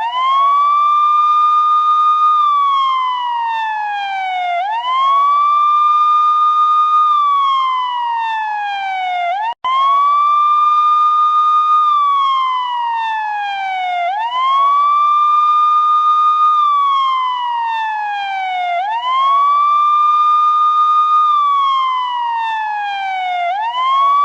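Indian police siren sounding a slow wail: each cycle rises quickly, holds its high note for about two seconds, then slides slowly down, repeating about every four and a half seconds. The sound drops out for a split second about ten seconds in.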